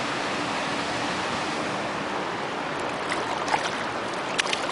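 Steady rush and splash of water around a small boat moving along a canal, with a few faint clicks in the second half.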